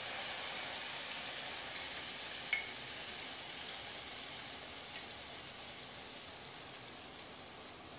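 Teriyaki-marinated chicken breasts frying in oil and butter in a nonstick pan over low heat, a steady soft sizzle that slowly gets quieter. A single light metallic clink about two and a half seconds in.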